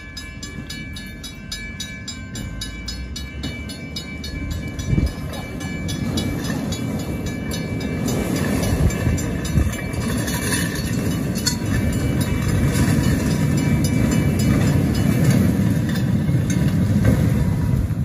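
Solar-powered electric railcar rolling along the track toward and past the listener. Its wheels rumble louder and louder as it nears, with a few sharp clacks over the rail joints.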